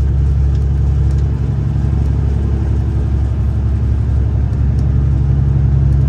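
Semi-truck diesel engine running steadily under way with road noise, a constant low drone.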